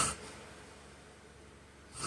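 The pause between a man's loud snores: one snore cuts off in the first moment, a quiet stretch of faint hiss follows, and the next snore starts just at the end.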